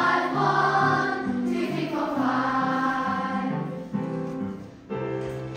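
Group of children singing together, with a steady musical accompaniment underneath. The singing dies away about three and a half seconds in, leaving the accompaniment playing quietly.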